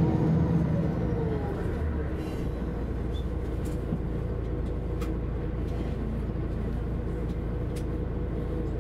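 Setra S 315 UL bus engine, its revs falling away over the first second or so, then running at a steady low drone, with a couple of faint clicks.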